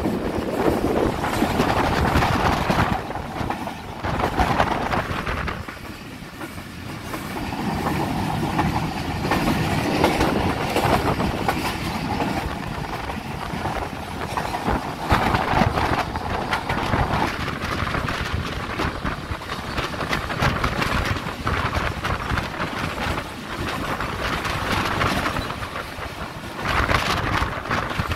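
Passenger train running, heard from inside a carriage by the window: a steady rumble of wheels on the rails with continual clicking over the rail joints, swelling and easing in loudness.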